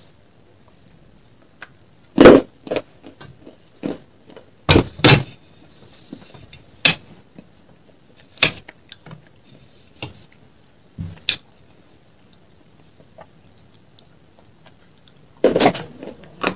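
Scattered sharp clicks and knocks of hard chalk bars and slate pieces being handled, tapped and set down against a steel plate and a glass, about a dozen in all, with a quick cluster near the end.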